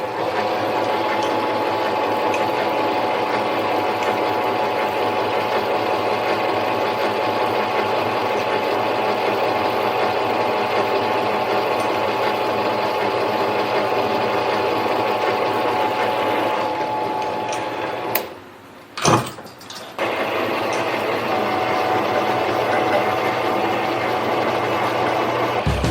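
Harbor Freight mini lathe running steadily, a motor-and-gear whine with a few steady tones. It drops out suddenly about eighteen seconds in, with a click or two, then runs on again about two seconds later.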